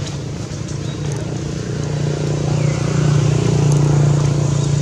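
An engine running at a steady pitch, getting louder over the first three seconds and then holding. A faint bird chirp falls in pitch about two and a half seconds in.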